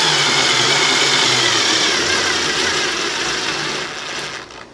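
Ryobi 4V cordless screwdriver's motor running as it drives a 2-inch coarse screw into pressure-treated pine, its whine sliding down in pitch as it slows under the load. It weakens and stops near the end.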